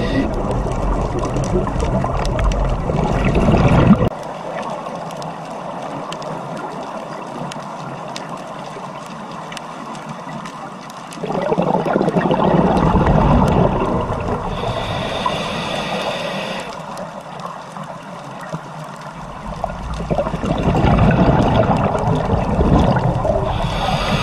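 Underwater ambience picked up by a diving camera: muffled water rushing with bubbling and gurgling. It drops sharply about four seconds in and rises again about eleven seconds in.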